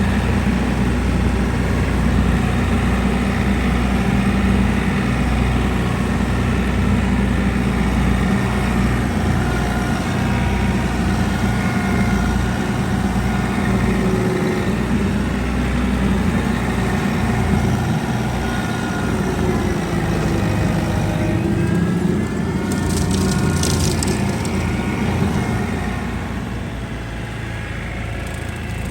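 Mower engine running steadily under load, its pitch wavering slightly as it cuts through thick, tall grass.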